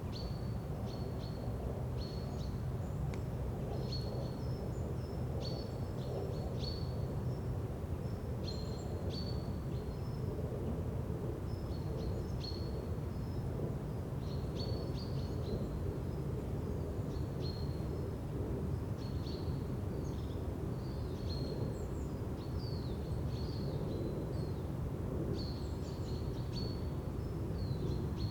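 Forest ambience: a steady low background hum with birds chirping and trilling throughout, many short high calls overlapping.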